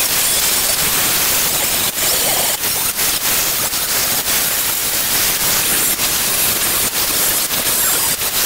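Handheld angle grinder grinding down welds on a steel rocker panel: a loud, steady grinding noise with brief dips where the disc eases off the metal.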